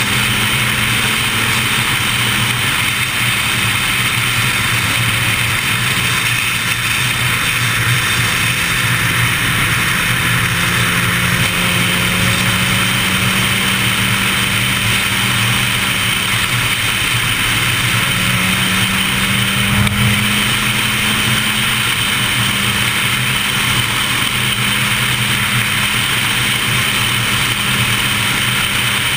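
Sport motorcycle engine running at a steady cruising speed, its note holding mostly even and rising briefly about two-thirds of the way through, under a constant rush of wind and road noise.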